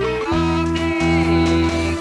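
Instrumental music with a plucked-string sound: a melody note held for about a second and a half over a repeating low accompaniment.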